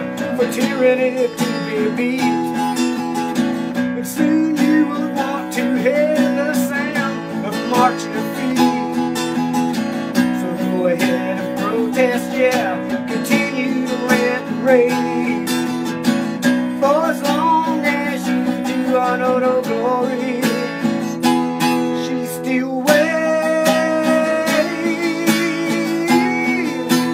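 Music: acoustic guitar strummed steadily, with a wavering melody line over the chords.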